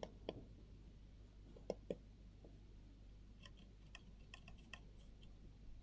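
Button clicks of a cat-shaped Akko computer mouse: a few separate clicks in the first two seconds, then a quicker run of lighter clicks.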